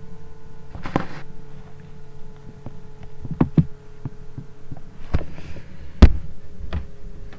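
Handling noise close to the camera: a few scattered knocks and bumps, the loudest about six seconds in, over a steady hum.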